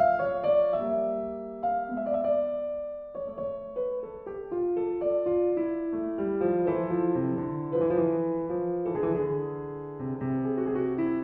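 Background piano music: a gentle run of single notes and chords.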